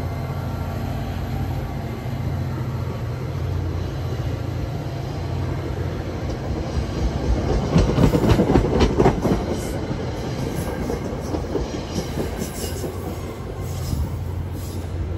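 NJ Transit commuter train of single-level coaches rolling past with a steady rumble of wheels on rail. Its loudest part is a rapid clatter of wheel clicks over the rail joints about eight seconds in, and faint high wheel squeaks come near the end as the last car draws away.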